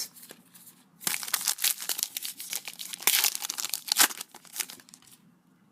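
Foil trading card pack wrapper being torn open and crinkled, a dense crackling that starts about a second in and stops near the end.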